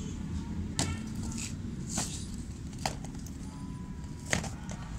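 Plastic sample jars knocking together as a hand rummages through a plastic crate of them: four sharp clacks spread over a few seconds, above a low steady background rumble.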